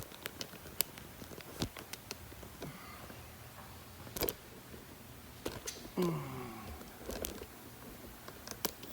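Scattered sharp clicks and knocks of hands handling a camera and car parts, with a short faint vocal sound about six seconds in.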